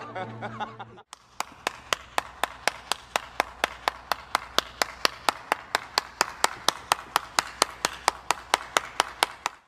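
One person clapping at a steady pace, about five claps a second, starting about a second in and stopping just before the end.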